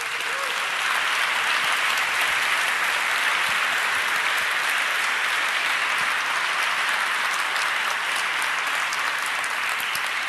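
Large audience applauding: dense, sustained clapping that swells up quickly at the start, holds steady, and eases off a little near the end.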